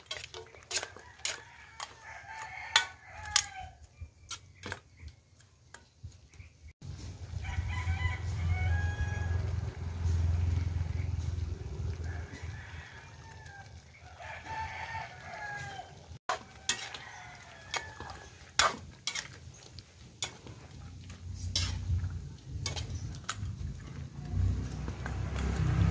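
A rooster crowing several times, with clucking, over sharp clinks and scrapes of a metal ladle stirring stew in a metal wok. A low rumble comes and goes.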